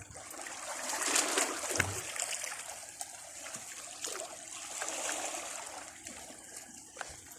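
Sea water washing in and trickling back, swelling twice.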